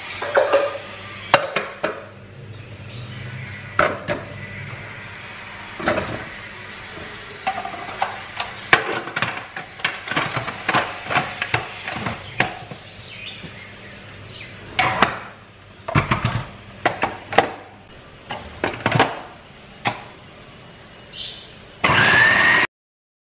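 Hard plastic clatter and knocks as a food processor is loaded and put together: beetroot cubes dropped into its plastic bowl, and the lid and parts clicked into place. Near the end the motor starts with a brief rising whir while it chops the beetroot, then cuts off suddenly.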